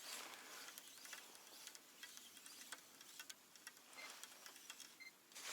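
Near silence: a faint hiss with scattered small ticks and clicks.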